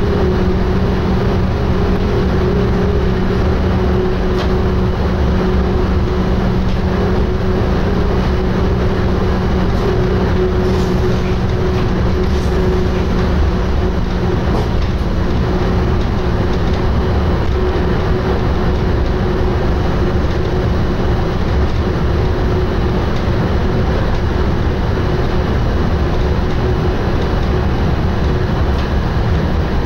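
NS SGM Sprinter electric multiple unit running along the line, heard from inside the driver's cab: a steady rumble of wheels on the track with an even hum, which weakens somewhat about halfway through.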